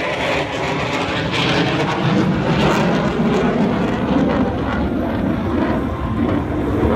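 Jet noise from an F-35 Lightning II's single F135 afterburning turbofan as the fighter flies its display over the airfield. It is loud and steady, a continuous rushing roar with no clear pitch.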